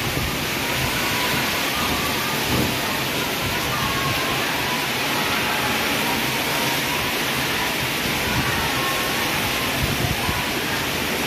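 Heavy storm rain pouring steadily, a constant dense hiss.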